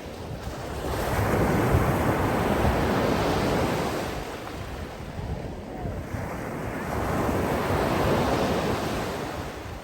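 Sea waves washing in, a broad rushing wash that swells twice, first a few seconds long and then again near the end.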